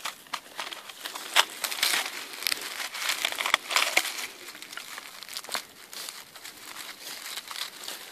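Dry fallen leaves crinkling and rustling close up as a hand brushes them aside from a mushroom on the forest floor. It is busiest in the first half and quieter after about five seconds.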